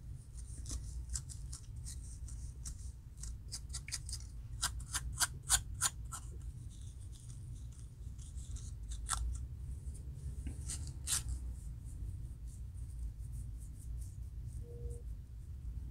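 Fine-tooth plastic comb scraping across a dry scalp between twisted locs, lifting dandruff flakes: a series of short, crisp scrapes, quickest and loudest about five seconds in, with a few more later. A low steady hum runs underneath.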